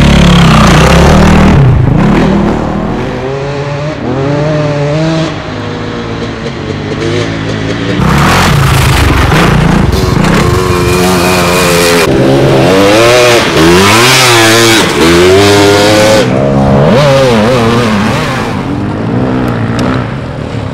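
Dirt bike engines revving hard. Their pitch repeatedly climbs and drops with the throttle as bikes accelerate along the track.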